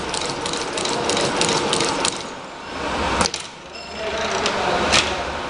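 Automated assembly machinery running, with rapid mechanical clicking at about five clicks a second. The clicking drops away about two seconds in, a single sharp click comes near the middle, and the clicking picks up again near the end.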